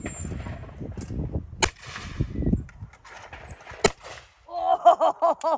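Two shotgun shots about two seconds apart from a Beretta over-and-under fired at clay targets. Near the end comes a louder, rapid run of short pitched yelps, about six a second.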